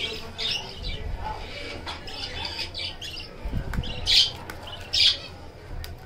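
Budgerigars calling: short, high-pitched squawks repeating, the two loudest about four and five seconds in.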